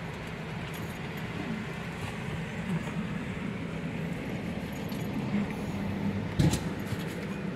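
Steady low mechanical hum at a petrol station while a car is being refuelled, with one sharp clack about six and a half seconds in.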